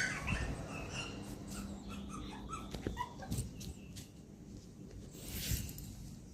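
Poodle puppy whimpering in short, high whines, with scattered light clicks and knocks and a short rustling burst about five and a half seconds in.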